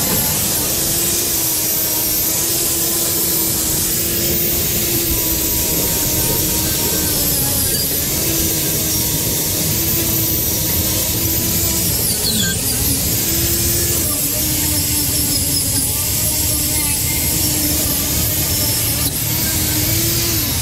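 Electric angle grinder with an abrasive attachment running against a rusty steel frame, stripping rust and grease with a steady high whine. The pitch sags briefly a few times as the tool is pressed into the metal.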